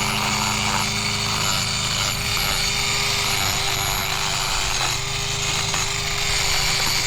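Mini angle grinder running steadily, grinding down a miniature horse's overgrown hoof wall. It shuts off right at the end.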